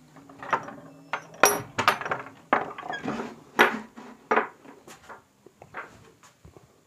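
Irregular knocks and clinks of objects being handled and set down, a dozen or so sharp strikes that thin out near the end.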